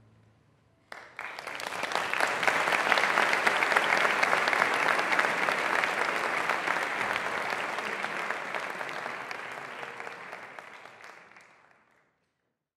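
Audience applause after a concert: it breaks out suddenly about a second in, holds strong for several seconds, then thins out and dies away near the end.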